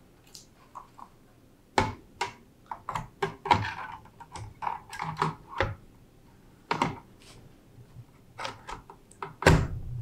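RTX 3090 graphics cards being handled and pressed into place in a metal GPU drawer's PCIe slots: irregular clicks and knocks of card and metal bracket, with the loudest thunk about nine and a half seconds in.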